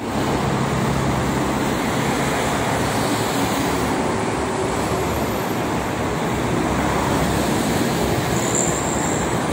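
Steady noise of multi-lane motorway traffic, mostly trucks, passing below: a continuous rush of tyres with engine drone, a low engine hum standing out in the first couple of seconds.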